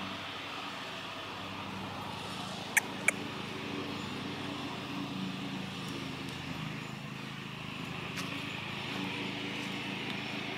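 A steady low engine-like drone with an even hum, from a motor running somewhere off-picture. Two sharp clicks about a third of a second apart cut in about three seconds in, with a fainter single click later.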